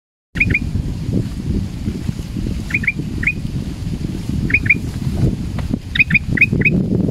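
Male black-crested bulbul calling with short, sharp notes, mostly in quick pairs, then a run of about five near the end. The uploader presents these as the calls of a frightened male.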